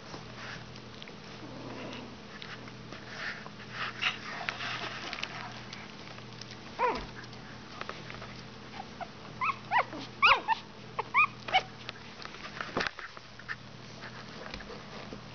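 Three-week-old Border Terrier puppies whimpering and squeaking: one short call about seven seconds in, then a quick cluster of short, high-pitched squeaks around ten seconds in, over faint scuffling as they crawl about on the blankets.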